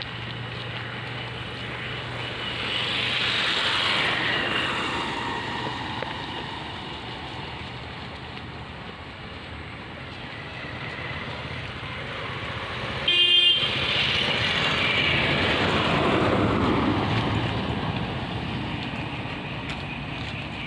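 Road vehicles passing by, twice, each swelling and then falling in pitch as it goes past. A short horn honk sounds just before the second pass and is the loudest sound.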